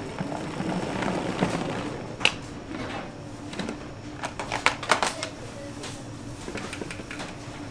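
Sharp clicks and knocks: one about two seconds in and a quick cluster of them around four to five seconds in, over a steady low hum.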